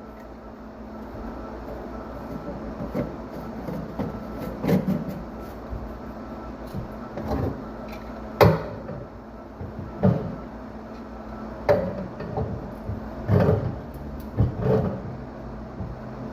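A series of irregular knocks and clunks, roughly one every second or two, over a steady low hum.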